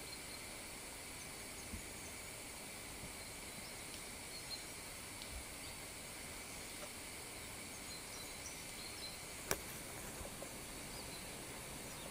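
Forest ambience: a steady, high-pitched drone of insects, with faint scattered chirps over it. A single sharp click about three-quarters of the way through.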